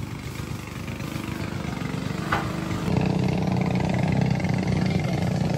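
A small engine running steadily with a low hum, growing louder about three seconds in.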